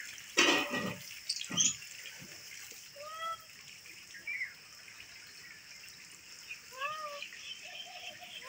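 Young tabby cat meowing twice, short meows about three and seven seconds in, each rising then falling in pitch. A brief loud noise comes near the start.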